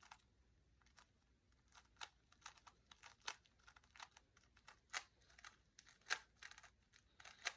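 Faint, irregular plastic clicks and rattles of a 3x3 Rubik's cube being turned in the hands, several short clicks a second.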